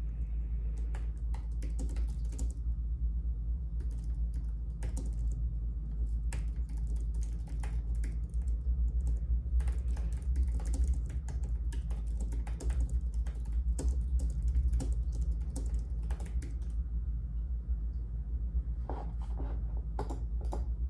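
Typing on a computer keyboard: runs of key clicks that stop for a couple of seconds near the end, then a few more keystrokes, over a steady low rumble.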